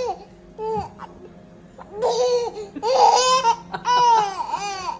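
A baby laughing and squealing in high-pitched bursts: a short one about a second in, then longer ones from about two seconds in.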